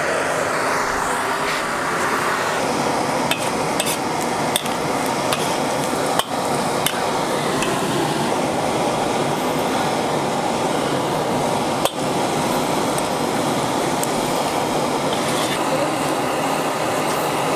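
Oil sizzling steadily in a wok as chicken cartilage fries dry, with a few scattered sharp knocks of the utensil against the wok.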